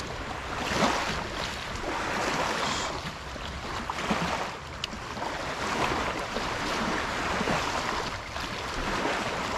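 Small river waves washing onto a sandy bank and against logs at the water's edge, coming in repeated surges, with wind on the microphone.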